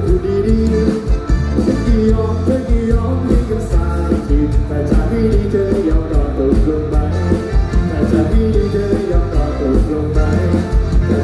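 Live band music played loud through a PA system: a man singing over a steady drum beat and bass.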